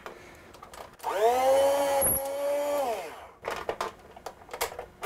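Electric rotary food slicer's motor whining up to speed about a second in, running steadily for under two seconds as its blade cuts the end off a potato, then switched off and winding down in pitch. A few clicks and knocks follow as the potato is handled on the slicer.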